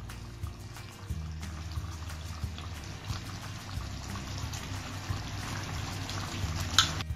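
Background music with low sustained bass notes, over the faint bubbling of a soy-sauce chicken gravy simmering in a wok. A single sharp click sounds near the end.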